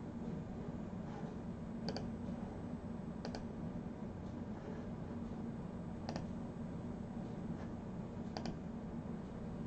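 A few separate clicks of a computer mouse, some heard as a quick double press-and-release, spaced a couple of seconds apart over a steady low hum.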